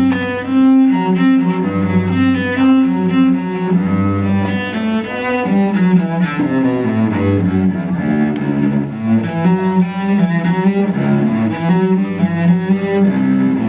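Bowed string instruments playing music, with held low notes beneath a moving melody.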